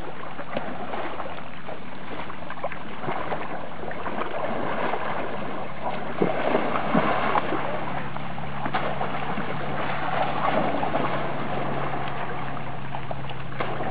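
Water splashing and churning as two young Asian elephants thrash and roll in a river, a steady rush broken by short splashes.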